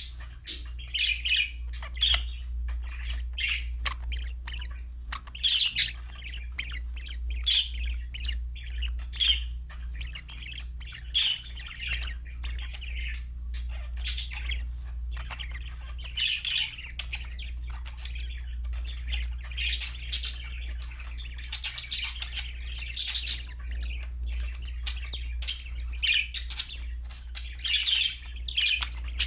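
Budgerigars chirping and warbling continuously, with many short high chirps and squawky notes, over a steady low hum.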